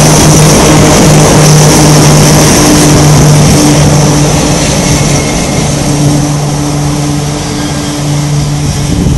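KORAIL electric locomotives hauling a freight train of tank wagons, running past close by with a loud, steady low hum and a hissing fan noise. The sound fades gradually in the second half as the locomotives draw away.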